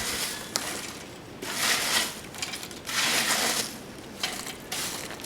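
Coke crunching and scraping at a coal forge's fire pot, in three rough strokes about a second and a half apart.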